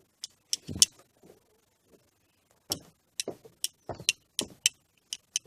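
A series of sharp clicks and light knocks, irregular at first, then settling into a steady run of about three or four clicks a second near the end.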